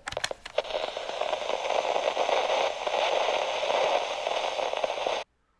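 Radio static: a steady crackling hiss, with a few sharp clicks at the start, that cuts off suddenly near the end.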